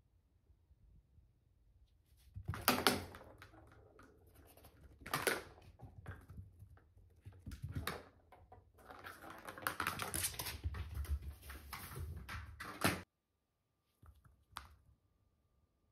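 A cat batting a small ball across a wooden floor: paws scrabbling and the ball knocking about, in several bursts of clattering with a few sharp knocks. It cuts off suddenly about 13 seconds in, and one short tap follows near the end.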